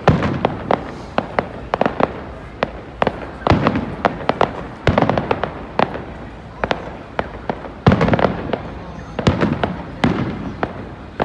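Fireworks display: a constant run of sharp crackling pops, with heavier shell bursts every second or two that leave a rumbling echo.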